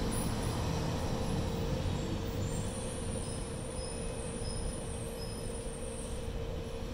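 Street traffic: a city bus and a car pass and fade away, leaving a low rumble and a steady hum. A few faint short chirps can be heard midway.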